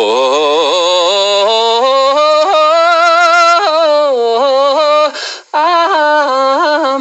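A man singing a Tibetan song solo in long held notes with heavy vibrato, climbing to a high sustained note and sliding back down, with a short breath about five seconds in.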